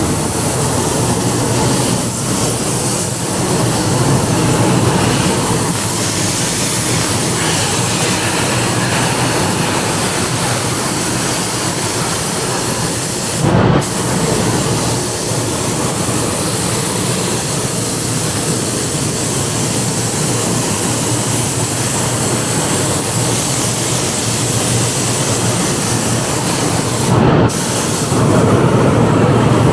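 Compressed-air paint spray gun hissing steadily as it sprays, briefly interrupted twice.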